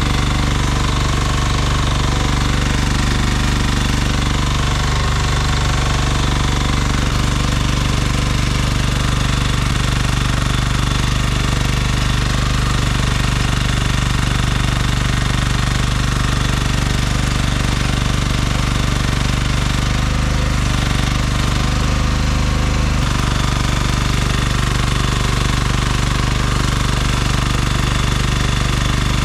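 Small engine of a one-ton mini excavator running steadily under work, with a fast hammering beat.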